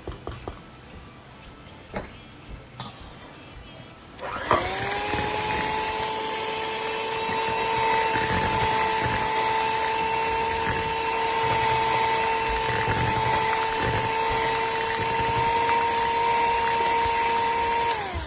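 Electric hand mixer switching on about four seconds in and running at a steady pitch as its beaters whip eggs into creamed butter and sugar in a metal bowl, winding down just before the end. Before it, a few clicks and scrapes of a spatula against the bowl.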